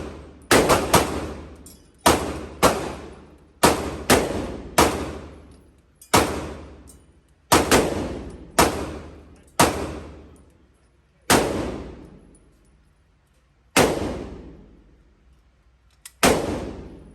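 Gunshots fired one at a time at an uneven pace, about fifteen in all, spaced from about half a second to two and a half seconds apart. Each shot is followed by an echo dying away.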